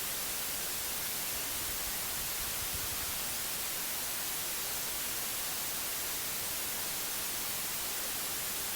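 Steady white noise, an even hiss with no change in level.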